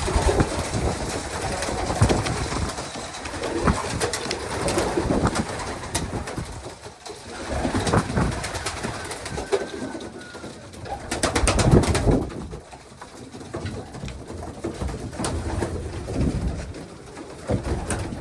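Racing pigeons cooing in their loft, with clattering and rustling around them that is loudest about twelve seconds in.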